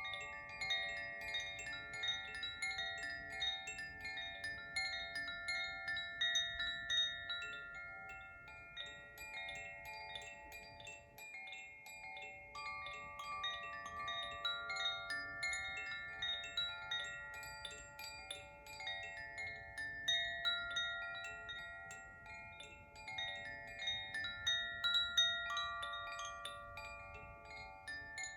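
Koshi chimes tinkling in quick, irregular strikes, their overlapping notes ringing on and blending together.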